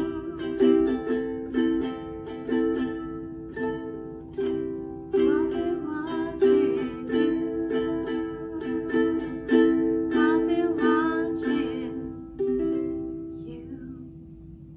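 A red Makala ukulele strummed in an island strum rhythm through C, Am, F and G7 chords. A final chord about twelve seconds in rings out and fades away.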